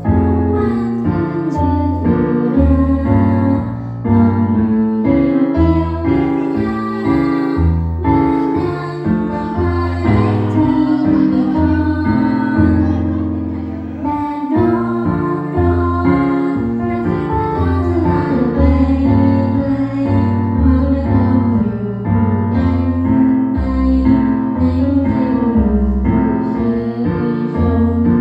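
Pop music with female singing over piano and a steady bass beat.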